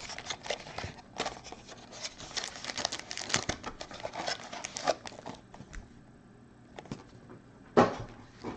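Handling of a cardboard mini box and its foil-wrapped trading card packs: a busy run of crinkling, rustling and small clicks that eases off about two-thirds of the way in, with a single sharp knock near the end.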